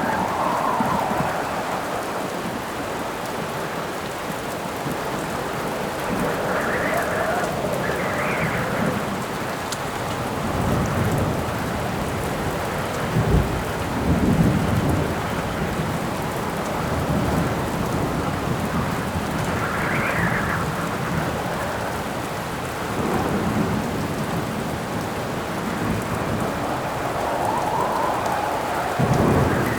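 Steady heavy rain with thunder rumbling several times, strongest around the middle, and gusts of wind howling up and dying away now and then.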